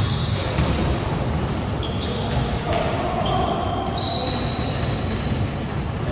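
A basketball bouncing on an indoor gym floor during play, with sneakers squeaking on the court in short high chirps near the start and again about two, three and four seconds in. The sounds ring in a large hall.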